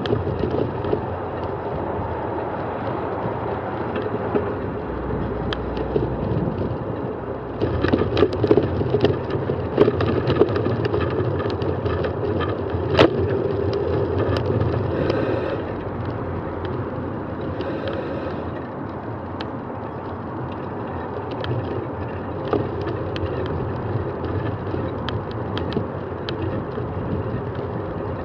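A bicycle riding along wet tarmac: steady tyre and wind noise on the microphone, with the bike rattling and clicking over the rough surface. The rattles are busiest through the middle, where there is one sharp knock.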